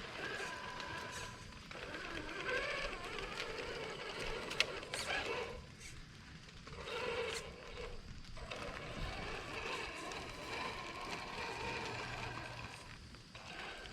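Traxxas TRX-4 Sport RC crawler's electric motor and gearbox whining in throttle bursts of a second to a few seconds, with short pauses in between, and a sharp click about four and a half seconds in.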